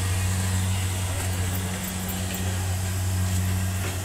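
Combine harvester's engine running steadily as it harvests rice: a constant low drone.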